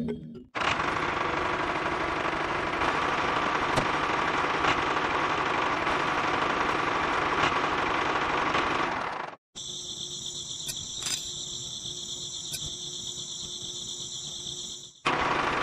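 A small electric motor whirring steadily. After an abrupt cut it gives way to a quieter, high-pitched buzz of several steady tones, then the whirring returns abruptly near the end.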